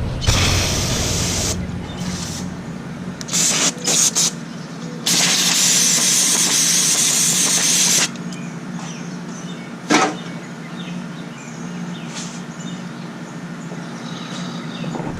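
Hissing spray let off in bursts that start and stop sharply: a long one of about three seconds and several short ones, over a steady low hum.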